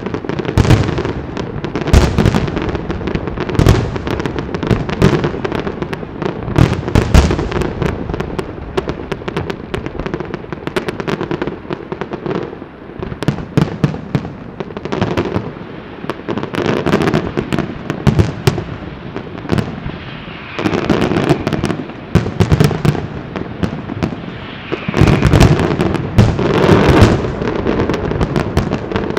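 Aerial fireworks display: a continuous run of shell bursts and bangs, thickening into dense rapid pops twice in the second half.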